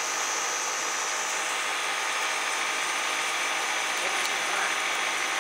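Cosen CNC wood lathe running and cutting a wooden stair baluster: a steady whirr of the spindle and drive with the hiss of the cutter taking wood off the spinning blank, over a steady high-pitched whine.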